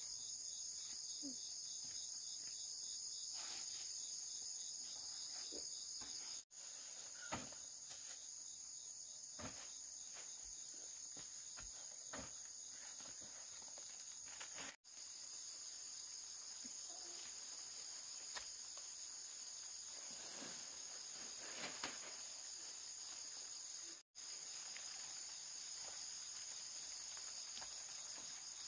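Insects chirring steadily in a high, even drone, with scattered faint taps and knocks.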